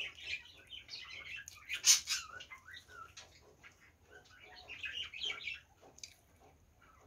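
Birds chirping in short, irregular calls, loudest about two seconds in and fading out near the end.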